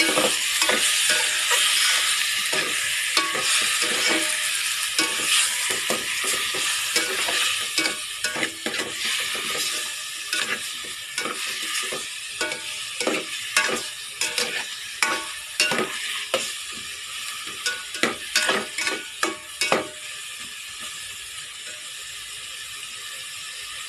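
Chicken pieces sizzling in hot oil with garlic, onion and ginger in a stainless steel pot while being stirred, the first searing stage of chicken tinola. Frequent sharp knocks and scrapes of the stirring utensil against the pot come through the middle stretch, and the sizzle eases down toward the end.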